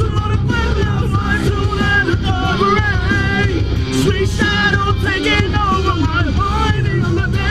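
A song playing, with a singing voice over a steady, heavy bass line.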